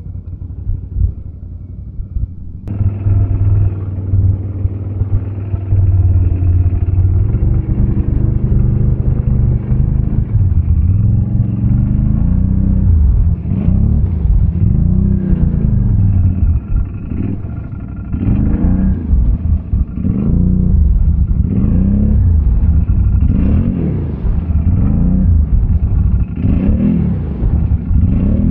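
ATV engine revving up and down over and over under load, its pitch rising and falling every second or two. It gets louder about three seconds in.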